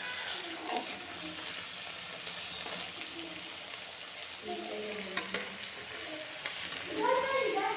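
Paneer, green peas, onion and green chillies sizzling steadily as they fry in oil in a wok, with a few sharp clicks of a metal spatula against the pan partway through.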